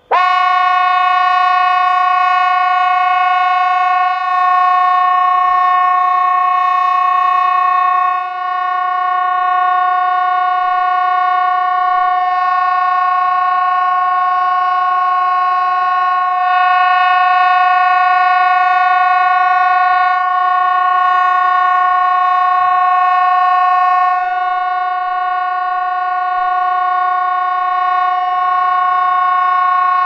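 Hesa Fredrik civil-defence warning horns sounding one steady, unbroken tone with a rich stack of overtones, starting abruptly and holding for about half a minute: the continuous 'Faran över' all-clear signal that closes the quarterly test.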